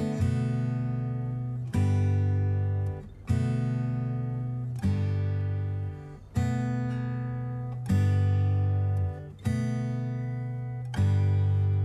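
Background music: strummed acoustic guitar chords, a new chord struck about every one and a half seconds and left to ring out.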